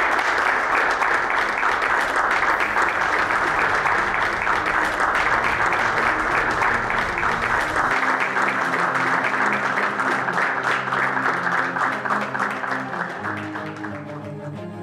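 A group of people applauding steadily, the clapping fading away near the end, over background music.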